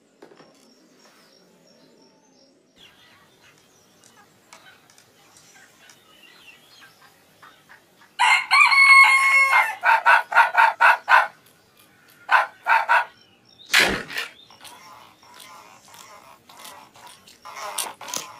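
Cartoon rooster crowing about eight seconds in: one held call, then a quick run of short clucking notes and a few more after a pause. A sudden loud hit follows a little later.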